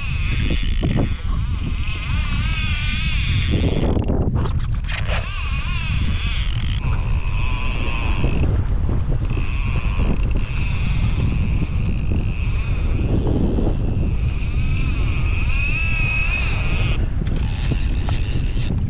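Fishing reel drag whining and buzzing as a hooked fish runs line off the spool, the high wavering whine breaking off and restarting a few times. Wind rumble on the microphone underneath.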